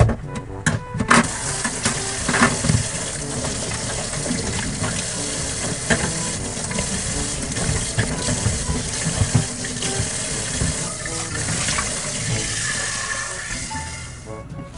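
Tap water running into a stainless-steel sink as ears of corn are rinsed under the stream, starting about a second in and fading away near the end.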